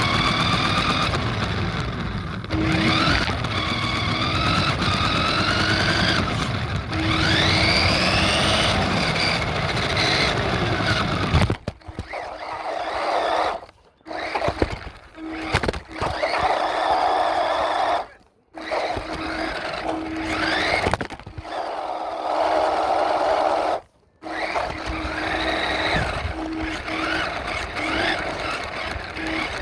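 Radio-controlled truck's motor whining up in pitch again and again as it is throttled, in repeated short runs. Around the middle the sound cuts off sharply to near silence several times.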